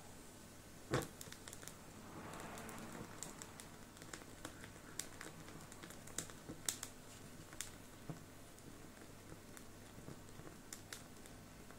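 Small lumps of charcoal in a miniature steel bowl grill crackling as they catch alight, with scattered sharp clicks and ticks. One louder knock about a second in, and a brief soft hiss of flame around two to three seconds.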